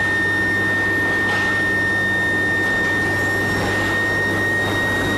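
Induction billet heating furnace running: a steady high-pitched whine from the induction coil and power supply over a constant low electrical hum and a wash of machine noise.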